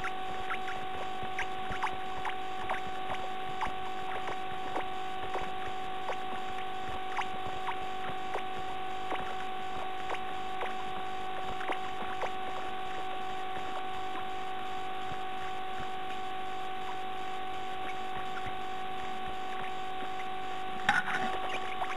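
Steady electrical hum from a nest-box camera. Through it come faint, short, high cheeps from nestlings, frequent at first and thinning out. Near the end a sudden louder scuffle as the parent bird arrives in the box.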